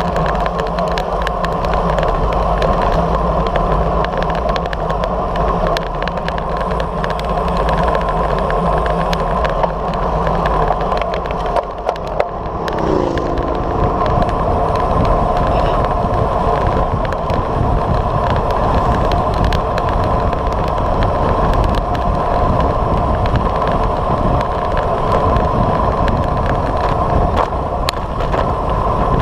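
Road noise from a moving road bike: wind rushing over the microphone of a bike-mounted camera and tyres running on asphalt. The wind rumble gets heavier about halfway through.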